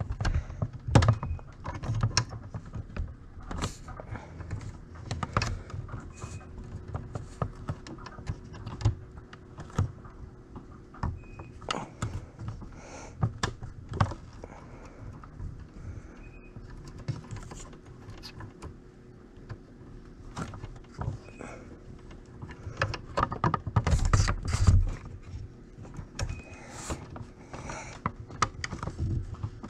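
Irregular small plastic and metal clicks and taps as fingers work a replacement automatic needle threader onto a Singer 6600C sewing machine, pushing it on until it snaps into place, with low handling rumble against the machine.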